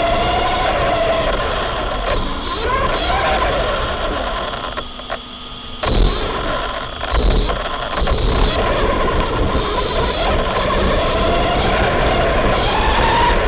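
ARRMA Big Rock V3 RC truck's electric motor whining, its pitch rising and falling with the throttle, over the noise of tyres churning loose ground. It drops off briefly about five seconds in, then comes back sharply a second later.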